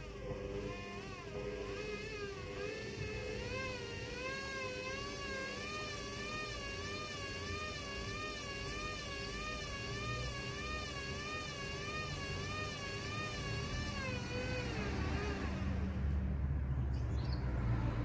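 Hoover front-loading washing machine tumbling a wet carpet: the motor's whine wavers evenly up and down in pitch about one and a half times a second, then falls away about fifteen seconds in as a low rumble grows louder.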